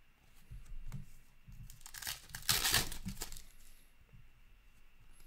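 A hockey card pack's foil wrapper tearing and crinkling for about a second, starting about two seconds in, with light knocks of cards being handled around it.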